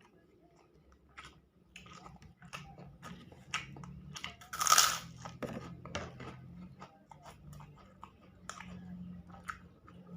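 Close-miked chewing and mouth sounds of a person eating spicy balado eggs with rice: irregular wet smacks and clicks, with one brief, louder rush of noise about halfway through.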